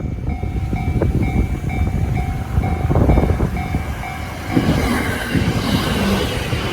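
Level crossing warning alarm sounding in short two-tone pulses about twice a second while an electric train passes over the crossing. The rumble and rattle of the train's wheels build up, and from about four and a half seconds in the train's rushing noise drowns the alarm.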